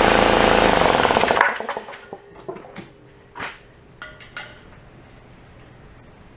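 33-gallon Craftsman air compressor running with a steady rhythmic clatter, then shutting off about a second and a half in. A few light clicks and knocks follow.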